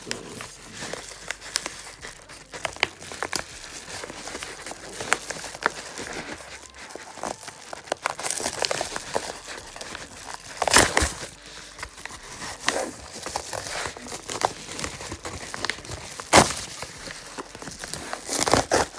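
Hands opening a mailed package: crinkling and crackling of the packaging with irregular tearing, and a few louder rips.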